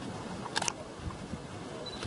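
Camera shutter firing a quick double click about half a second in, over a faint low rumble.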